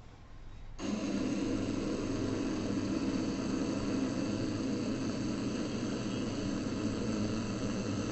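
Long, unbroken Ujjayi pranayama breath drawn through a narrowed throat: a steady, rasping, snore-like sound that starts abruptly about a second in.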